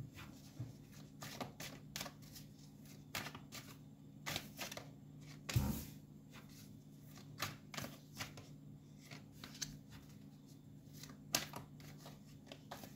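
Tarot cards being handled and laid down one at a time on a wooden tabletop: a scattered run of quick card clicks and slaps, with one louder knock about halfway through, over a faint steady hum.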